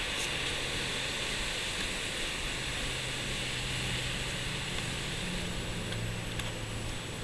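Steady rushing noise of distant ocean surf, with a faint low hum joining about two and a half seconds in.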